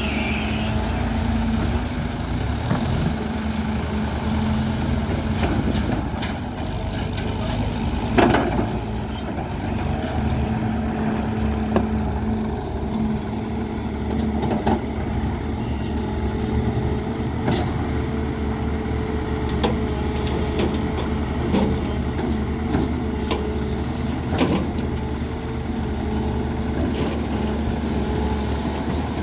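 Diesel engines of a JCB tracked excavator and waiting farm tractors running steadily as the excavator digs and loads soil into tractor trolleys, with scattered clunks and knocks, the loudest about eight seconds in.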